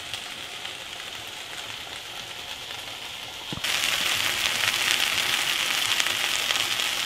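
Diced bell peppers and red onions sizzling in oil in a frying pan. The sizzle is faint at first, then abruptly much louder about three and a half seconds in, with fine crackling throughout.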